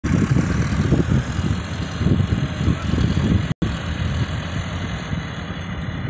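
Farm tractor's diesel engine running steadily as it pulls a reversible plough through stubble. The sound drops out for an instant about halfway through.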